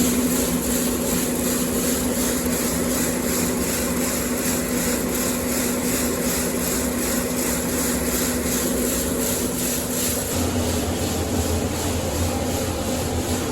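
Farm machinery running steadily with an even, fast pulsing; the sound changes about ten seconds in, when a deeper hum comes in.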